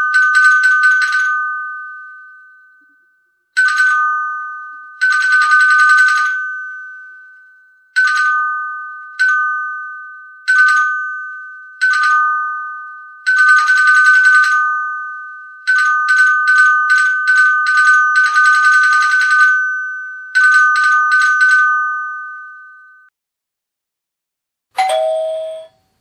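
Doorbell ringing in about eleven bursts of rapid strikes, some short taps and some held for over a second, with its two high tones ringing on and fading after each burst. Shortly before the end comes a brief, lower-pitched chime.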